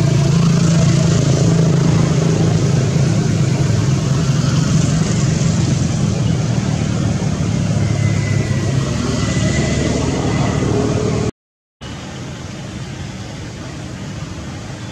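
Steady low drone of a motor vehicle engine running, slowly fading. About three-quarters of the way through it cuts out abruptly for half a second, then a quieter steady background continues.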